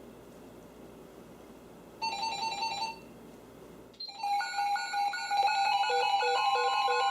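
Several NOAA weather alert radios going off together as a flood warning comes in. One radio beeps briefly about two seconds in. From about four seconds, many electronic alarm beeps in different pitches and rhythms overlap, and a steady alert tone joins near the end.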